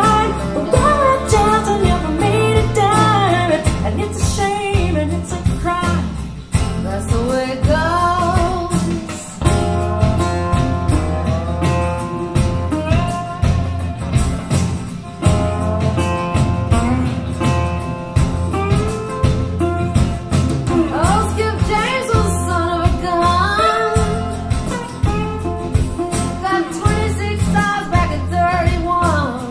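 A blues song played back over KLH Model 5 loudspeakers and picked up by room microphones about ten feet away: a woman singing over guitar and bass.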